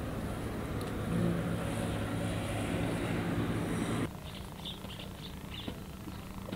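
An engine running steadily, cut off abruptly about four seconds in, followed by quieter outdoor ambience with short high chirps.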